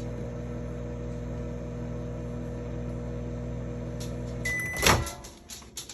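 Microwave oven running with a steady hum, then shutting off about four and a half seconds in with a short beep, followed by a loud clack as the door is opened.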